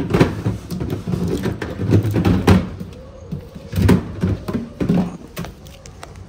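Irregular knocks and clatter from a new refrigerator being handled, its doors and plastic fittings opened and moved.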